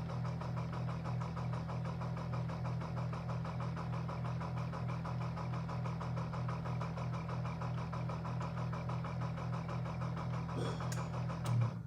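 Amazon Basics Dual Brew single-serve capsule coffee maker running with a steady buzzing hum, as if about to brew, then cutting off suddenly by itself near the end. It is a fault: the machine sounds like it is working but dispenses nothing and shuts itself off.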